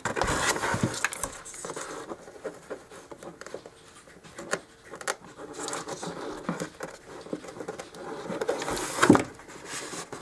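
Hands handling a small miniature light fixture and shifting a foam-core room box on a tabletop: scattered light taps, clicks and rustling, loudest in the first second and again about nine seconds in.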